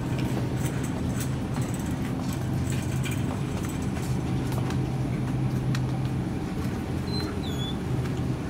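Grocery store ambience: a steady low hum with a shopping cart rolling along, its wheels and wire basket rattling faintly.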